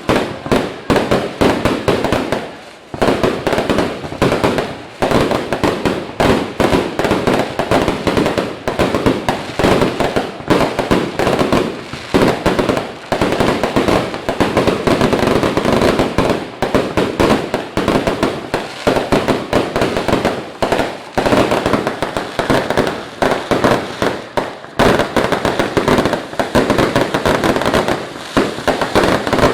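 Fireworks going off in a dense, continuous barrage of sharp bangs and crackles, several a second.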